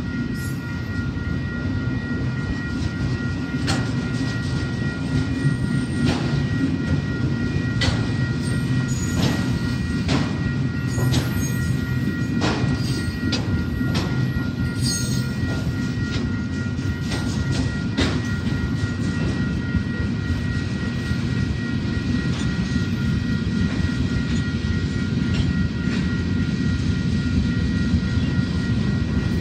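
A freight train's cars, autorack car carriers and then covered hoppers, rolling past with a steady low rumble. Irregular sharp clacks come mostly through the first half, and two thin steady high tones ring throughout.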